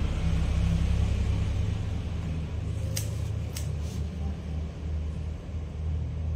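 A steady low rumble, with two short sharp snips of hair-cutting scissors about three seconds in, half a second apart.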